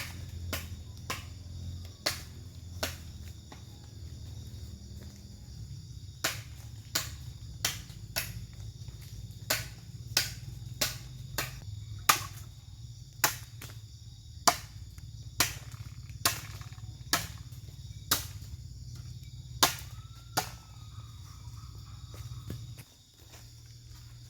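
About twenty sharp knocks struck one after another, half a second to a second apart, with a short pause early on and stopping shortly before the end. Behind them a steady high insect chorus and a low steady rumble, which drops away near the end.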